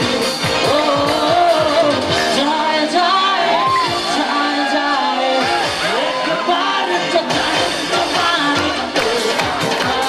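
A live band plays a pop song: a man sings into a handheld microphone, backed by bass guitar and keyboards through the PA.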